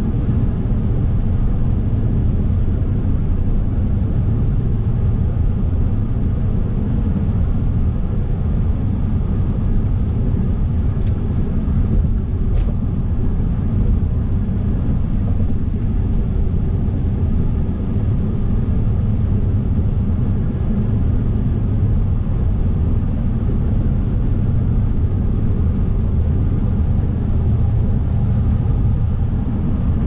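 Steady low rumble of a car's road and engine noise heard from inside the cabin while driving at highway speed, with one faint click about twelve seconds in.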